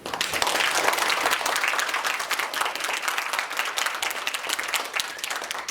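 Audience applauding, a dense crowd of many hands clapping that thins out near the end.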